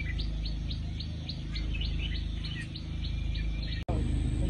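A small bird chirping in a quick series of short high notes, each falling in pitch, about four or five a second, over a steady low rumble. The sound drops out for an instant near the end, then the chirping goes on.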